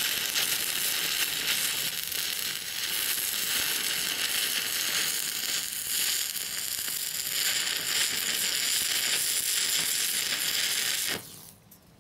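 Stick (MMA) welding arc running steadily as an electrode lays a bead on a steel bar, then stopping suddenly about eleven seconds in as the arc is broken.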